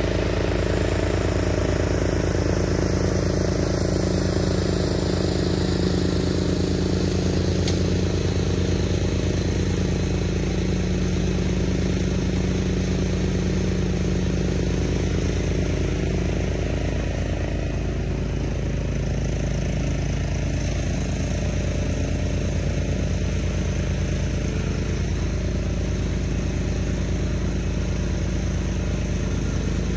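Cub Cadet 760 ES 33-inch walk-behind mower's engine running steadily while cutting grass, dipping slightly in level about halfway through.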